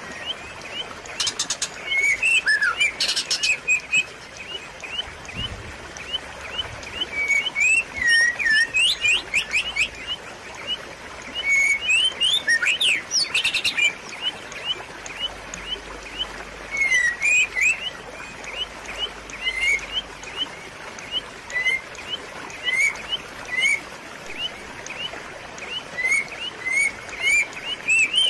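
Water trickling over rocks as a steady hiss, with many short, high chirping notes scattered over it about once or twice a second.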